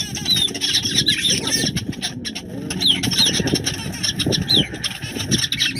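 Many small yellow birds chirping rapidly as they feed inside a safari Land Rover, short quick calls one after another over a low background rumble.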